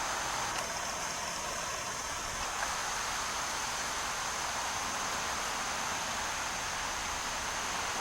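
Steady outdoor background hiss with a constant thin high whine running through it. A faint pitched tone sounds from about half a second to two and a half seconds in.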